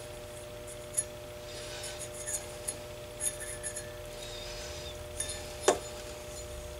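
Soldering iron tip clicking and clinking against the metal base pins of a 3-500Z glass transmitting tube while the pins are re-tinned, with two sharper clicks, about a second in and near the end, and a few lighter ticks and a soft hiss of hot flux between.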